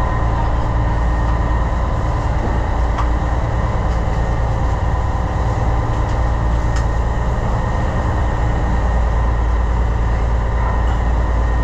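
Steady low drone of the fishing boat's engine machinery running, heard inside the galley, with a few light clinks as lasagna is served onto a plate.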